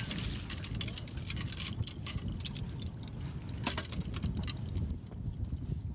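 Metal chain clinking and rattling over the boat's rail as a bottom-grab sediment sampler is lowered on it, over a continuous low rumble.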